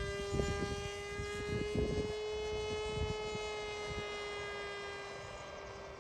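Electric RC model airplane motor running at steady high throttle, a whine with many overtones that eases off slightly near the end. Wind buffets the microphone.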